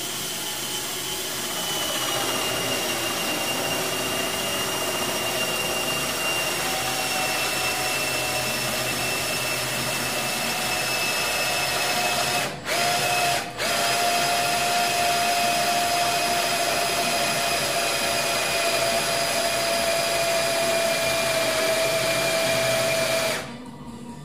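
Hand-held power drill boring down into a turned wooden chair part, its motor whine steady and slowly sinking in pitch. It stops briefly twice about halfway through, then runs on until it cuts off near the end.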